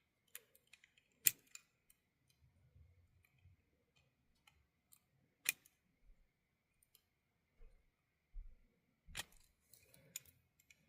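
Small, sharp clicks and light taps from handling tiny metal parts and tools while reassembling an HO-scale model locomotive. About four louder clicks stand out among scattered faint ticks.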